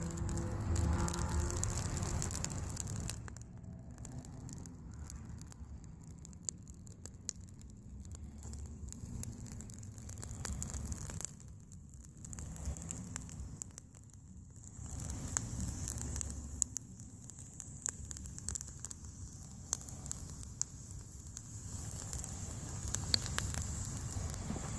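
A fire of dry sticks crackling in a steel fire pit, with many scattered sharp pops, over a low rumble that comes and goes.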